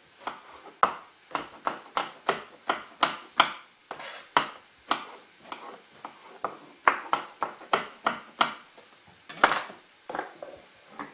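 Chef's knife dicing an aubergine on a wooden chopping board: a run of sharp, irregular knife strikes on the board, about two a second.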